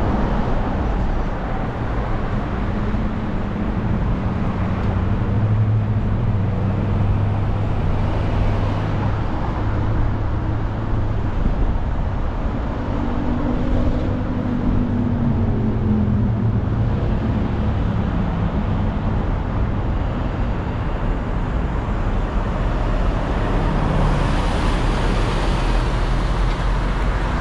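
A car driving on a busy freeway, heard from inside the cabin: a steady engine hum and tyre and road noise. Around the middle a low engine note rises and falls, and the road hiss grows louder near the end.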